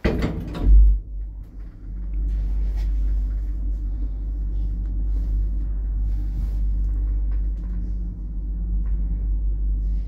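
Lift door shutting with a heavy thud, then the lift car, built in 1990, starting off and travelling with a steady low rumble and hum from its machinery.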